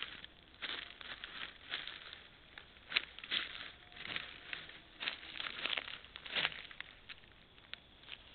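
Faint, irregular rustling and crackling of dry leaf litter as a kangaroo forages and moves close to a trail camera, picked up by the camera's thin, muffled microphone.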